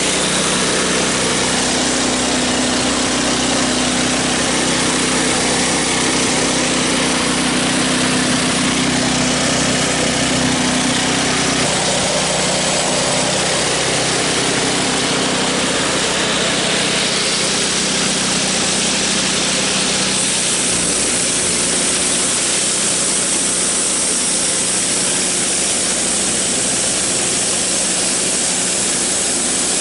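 Homemade band saw mill running under power: its 9.5-horsepower snowblower engine runs steadily at throttle while the band blade saws through a poplar log, with a loud mechanical din and a bright high hiss. The engine note shifts about a third of the way in, and the high noise grows brighter past the middle.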